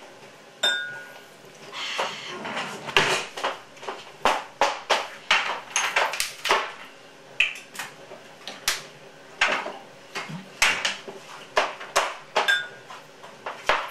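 Busy kitchen clatter: bottles, glasses and utensils being picked up, knocked together and set down on a worktop in quick, uneven knocks, with a short glassy ring near the start and another near the end.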